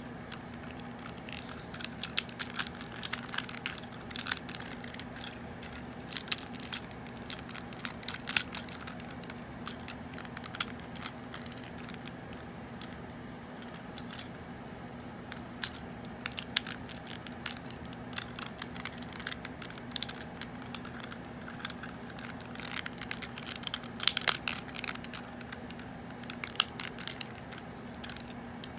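Clicks, snaps and plastic rubbing of a vintage G1 Transformers Hot Rod toy being handled and transformed, its parts swinging and clicking into place in irregular bunches. A steady low hum lies underneath.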